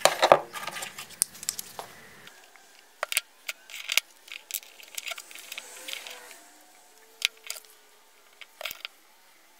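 Small wooden parts being handled on a wooden workbench: scattered light clicks and knocks of wood on wood, busiest in the first second or two and then sparse.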